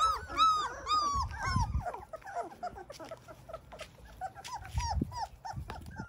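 Three-week-old yellow Labrador puppies whimpering and squealing in a quick run of short, high, arched cries, several a second, densest over the first two seconds and thinning out toward the end. A couple of low thuds come in underneath.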